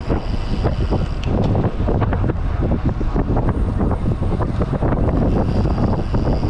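Wind buffeting the microphone of a camera mounted on a road bike being ridden at speed: a loud, steady, rumbling rush.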